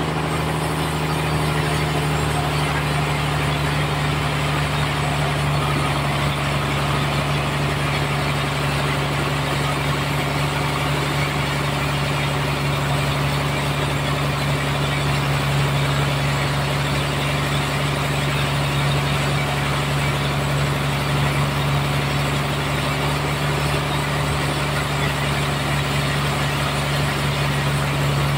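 Band sawmill running steadily with a constant low hum, sawing a trembesi (rain tree) log into boards.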